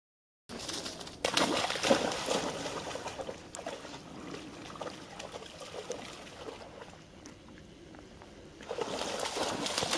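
A golden retriever wading through shallow water, its legs splashing and sloshing. The sound starts after a brief silence, is loudest in the first couple of seconds, eases off in the middle and picks up again near the end.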